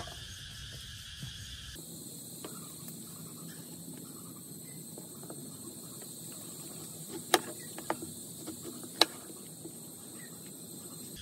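Kitchen knife slicing a green gourd on a wooden chopping block, with two sharp knocks of the blade on the wood about seven and nine seconds in. A steady high insect chirring runs underneath.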